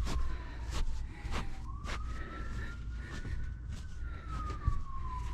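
An emergency vehicle siren wailing, one tone sliding slowly down, rising for about two seconds, then falling again, over a low steady rumble. Scattered short clicks and rustles sound with it.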